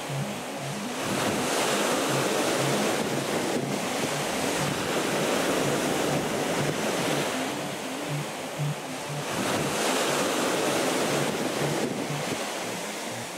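Sea water rushing and splashing along the hull of a moving ship, with wind buffeting the microphone. It swells and eases every few seconds.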